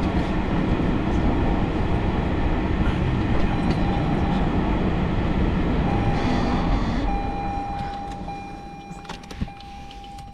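Car running heard from inside the cabin, a steady rumble of engine and tyres that dies down as the car slows and stops about eight seconds in. A steady electronic tone starts about seven seconds in and carries on, and there is a single click near the end.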